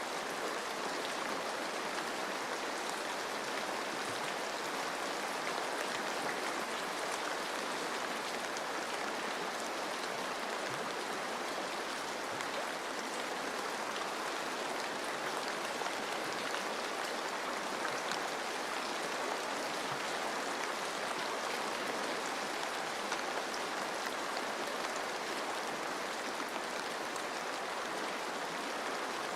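Steady rain pattering on forest leaves over the running water of a stream: an even hiss with faint scattered drop ticks, unchanging throughout.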